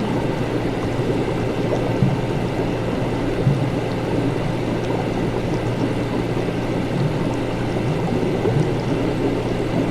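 Laboratory ambience: liquid bubbling and gurgling steadily over a low, constant hum.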